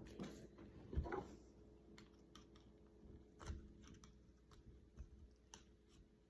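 Faint, scattered small clicks and a couple of light knocks as a tool works at the plastic clips inside a Sonicare electric toothbrush's housing.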